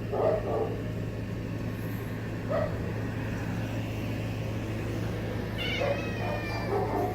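Domestic cats meowing a few times: short calls near the start, another a couple of seconds in, and a longer, higher meow about six seconds in, over a steady low hum.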